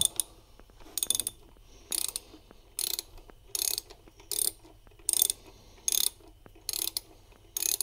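Socket ratchet clicking in short runs, one on each back-swing of the handle, about one run a second, as a 10 mm bolt is backed out.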